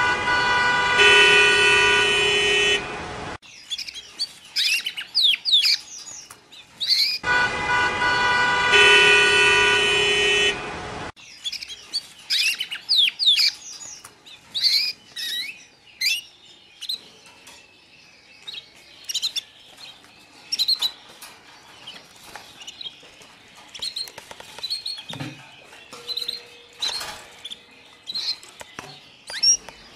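Road traffic noise with car horns honking, in two stretches of a few seconds each: near the start and again about seven seconds in. Between and after them, small birds chirp and twitter with many short, quick calls.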